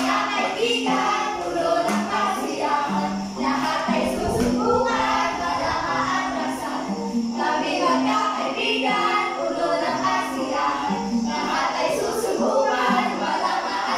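Music with a group of voices singing a song, over a stepping melody line.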